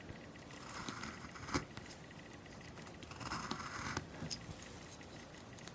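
Woodcarving gouge pushed by hand through wood: two short, faint cutting strokes about two seconds apart, with a sharp click just after the first.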